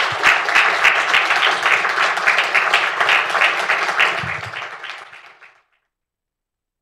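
Audience applauding, the clapping dying away and cutting off about five and a half seconds in.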